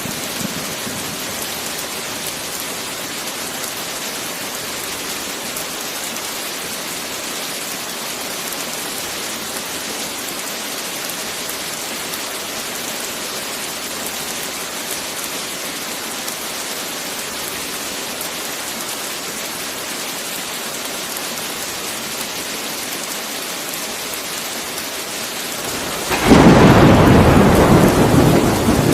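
Heavy rain falling steadily as an even hiss. About 26 seconds in, a loud clap of thunder breaks in suddenly and rumbles on, slowly fading.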